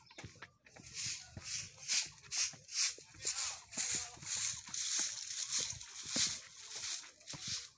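Footsteps going down concrete stairs: shoes scuffing on the gritty steps in an even, hissy rhythm of about two steps a second.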